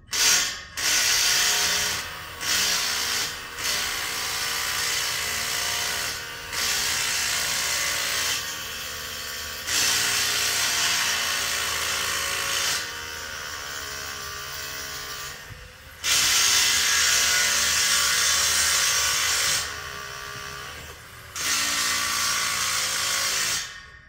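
Hammer drill boring anchor holes into concrete for a railing post's base plate. It runs in spells of a few seconds, stopping and starting again several times.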